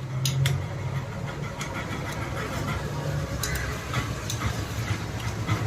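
Sharp metallic clicks of a hand tool working the cylinder-head nuts, a couple near the start and a few more around the middle, over a steady low engine rumble from a motor vehicle running in the background.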